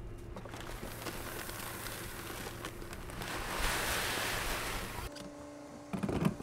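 Seed pouring out of a bag into a seed box, a steady rushing hiss that swells about three and a half seconds in. It stops suddenly at about five seconds, and a few knocks follow near the end.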